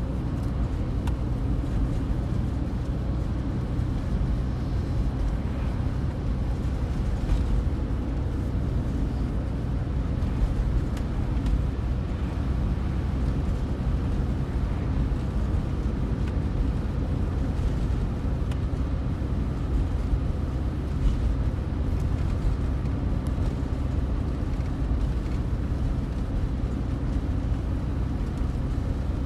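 Steady low rumble of a car driving on an open road, heard from inside the cabin: tyre and road noise with engine hum.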